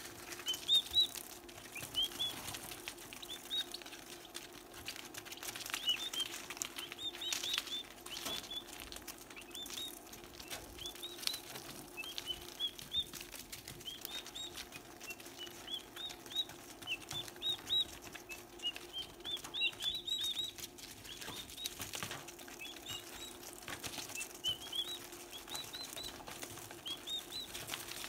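Turkey poults peeping: a steady stream of short, high calls, often in quick runs, mixed with sharp ticks and rustling as they peck at flying ants on newspaper.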